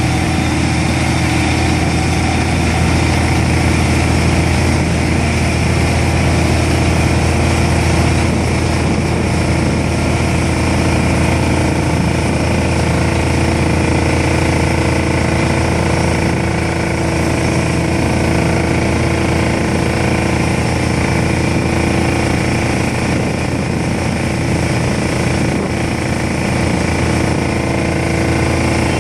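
Bruce SGV-400 vibratory pile hammer running steadily as it vibrates a steel sheet pile into the ground: a loud, constant mechanical drone with a strong low hum.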